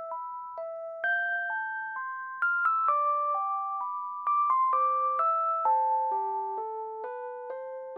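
Background music: a simple, gentle melody of single notes, each changing every few tenths of a second, over a held accompanying tone.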